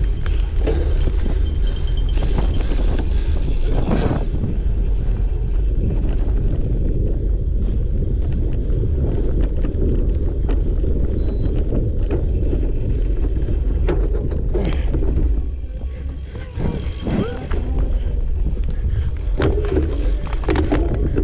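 Wind buffeting the onboard microphone of a cyclocross bike in a race, over the steady rumble and rattling knocks of the bike on rough ground. There is a short high beep about eleven seconds in.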